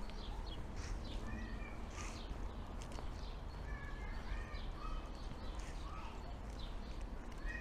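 Outdoor street ambience: a steady low background hum with scattered short, high chirps of small birds.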